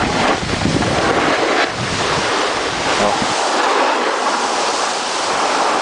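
Steady hiss of soft, freshly fallen snow under someone sliding downhill, mixed with wind rushing over the microphone, which rumbles in gusts during the first half.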